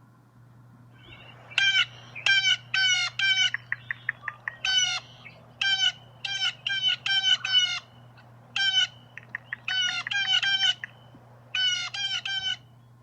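A bird calling with repeated short, harsh calls in quick runs of three to five, with a rapid rattle of ticks about four seconds in.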